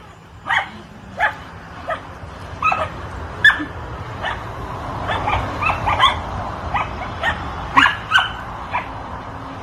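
Puppies yapping: a dozen or so short, high-pitched yips spread through, with a low rumble underneath.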